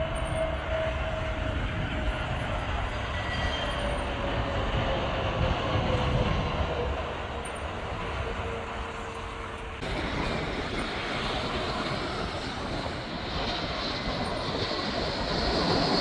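Jet engines of Airbus A320-family airliners on landing approach: a steady rumbling noise with an engine whine that slides slowly down in pitch as the first jet passes. About ten seconds in the sound switches abruptly to another approaching airliner, whose high whine grows louder near the end.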